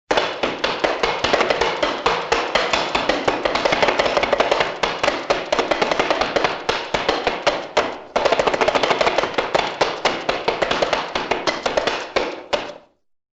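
Rapid, irregular sharp tapping, many taps a second, that dies away about eight seconds in, starts again at once and fades out near the end.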